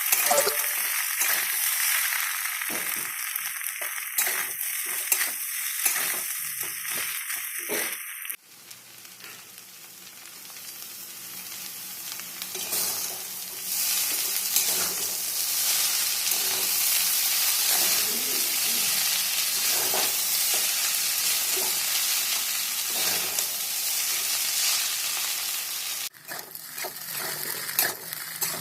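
Veg chowmein sizzling in a hot pan while being stirred, with quick scraping ticks over the hiss. About 8 s in it cuts to a steady sizzle that starts quieter and swells, then near the end it cuts back to sizzling with stirring ticks.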